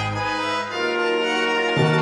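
Orchestral music with long held notes; the chord changes about two-thirds of a second in and again near the end.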